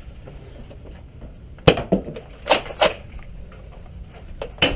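Several sharp pops of foam-dart blasters firing, the loudest a little under two seconds in, three more close behind it, and another near the end.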